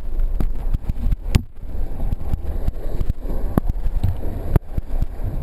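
Whitewater rushing and splashing around a kayak in a rapid, with a heavy low rumble of water buffeting the camera. A few sharp knocks cut through: one about a second in and two more near the end.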